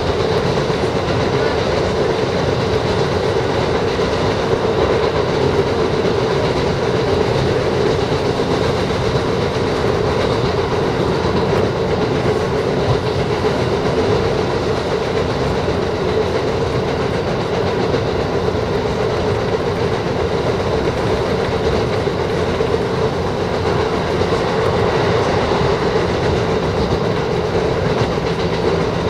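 Diesel railcar heard from inside the passenger cabin, running at steady speed. Engine and wheels on the rails make a continuous, even rumble.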